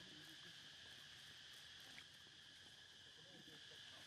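Near silence: a faint, steady high-pitched insect drone, with a few faint indistinct vocal sounds beneath it.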